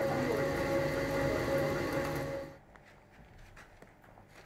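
Soap factory machine running with a steady hum and whine, stopping abruptly about two and a half seconds in; a few faint clicks follow.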